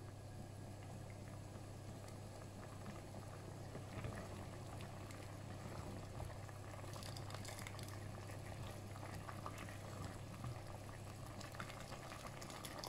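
Barley porridge with coconut milk bubbling as it comes to the boil in a pot, stirred with a ladle, with a few light scrapes and taps of the ladle against the pot, mostly from about four seconds in.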